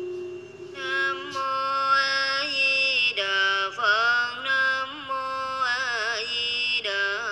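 A Buddhist nun's voice chanting a sutra in a slow melody with sliding, wavering notes. A long held note fades just after the start, and the melodic line begins about a second in.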